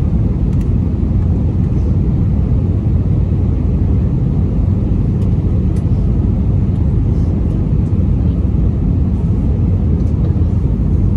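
Airbus A320-216 cabin noise heard from a window seat over the wing: the steady, low rumble of its CFM56 engines and the airflow during the descent to landing.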